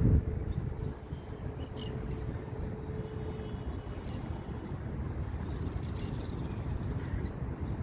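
Outdoor park ambience: a steady low rumble, with a few brief, faint bird chirps scattered through it.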